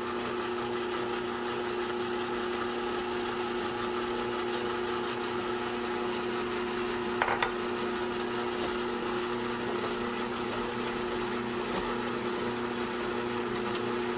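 350-watt Sunbeam MixMaster Heritage Series stand mixer running steadily on low speed, its dough hooks working flour and water into chapati dough: an even motor hum with one short knock about seven seconds in.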